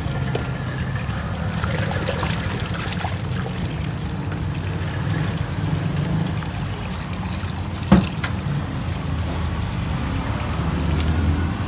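Tap water running into a stainless steel sink and splashing over hands rinsing chunks of carrot and potato. A single sharp knock about eight seconds in.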